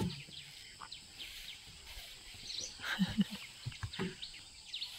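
Many birds chirping at once, a dusk chorus of short, quick calls overlapping one another, with a few brief faint human voice sounds about three seconds in.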